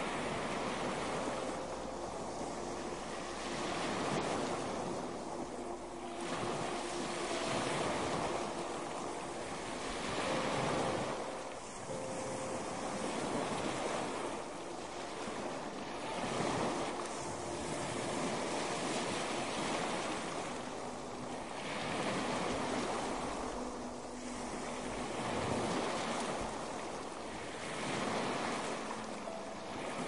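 Small sea waves breaking and washing up a sandy beach, the surf rising and falling every few seconds.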